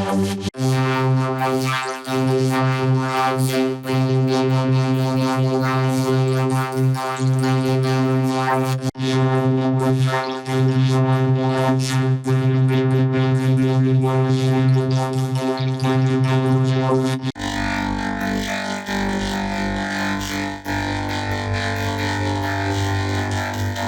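Electronic music with long, steady held synthesizer tones; about seventeen seconds in it switches abruptly to a different, busier passage with a heavier low end.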